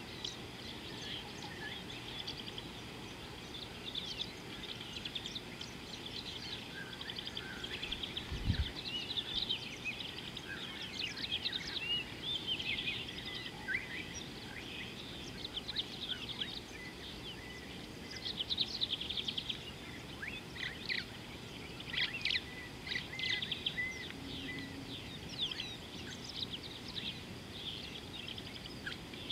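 Many small birds chirping and calling in quick, high notes over a steady outdoor background hiss, with a single brief low thump about eight seconds in.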